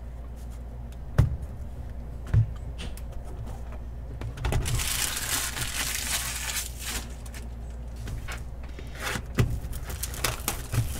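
Trading cards and their packaging being handled on a table: two sharp taps in the first few seconds, then a few seconds of rustling, then small ticks and a few knocks near the end. A low steady hum runs underneath.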